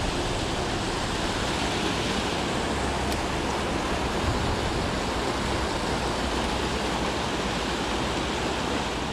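Steady rush of water pouring over a low-head dam spillway.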